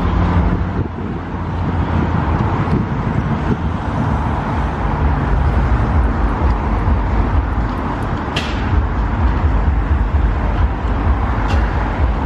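Steady rumble of road traffic, with a couple of brief faint clicks about eight and eleven seconds in.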